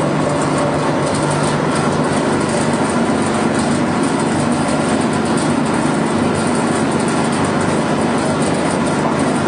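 Small pet-food pellet machine running steadily under load: a constant motor hum with dense mechanical noise while pellets are thrown out onto a heap.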